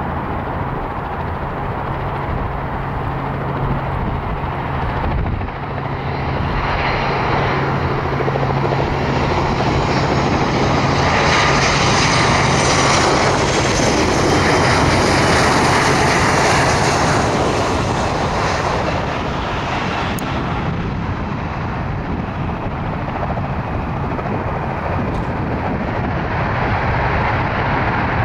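Boeing 737 MAX 8's CFM LEAP-1B turbofans on landing approach: a steady jet rumble that grows louder as the airliner passes close by about halfway through, with a high fan whine at its loudest, then eases as it flares for touchdown.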